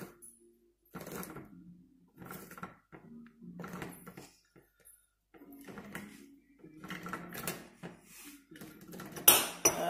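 Hand-held manual tin opener being wound round the rim of a tin, its cutting wheel biting through the lid: a run of short clicking, scraping bursts, about one a second, one for each turn of the key.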